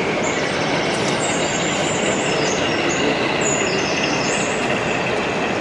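Model railway diesel shunter moving slowly with its goods wagons, a steady whine over constant hall background noise, with short falling squeaks high up.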